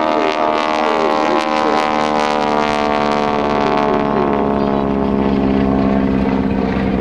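Radial engines of a T-6 Texan (Pratt & Whitney R-1340) and a Beechcraft Model 18 (twin R-985s) rumbling past in a low trail-formation pass. It is a loud, steady drone of several pitches that slides gradually lower as the aircraft go by.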